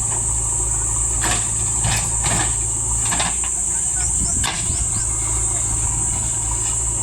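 JCB 3DX backhoe loader's diesel engine running steadily, with a handful of sharp knocks in the first half of the clip. A steady high-pitched insect-like whine runs over it.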